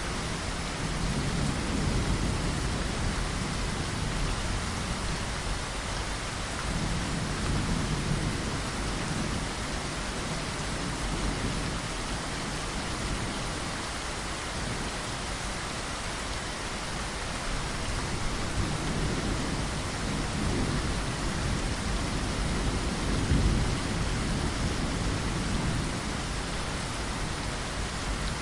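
Steady heavy rain falling on a window, with low rolls of thunder swelling up a few times, the loudest about three quarters of the way through.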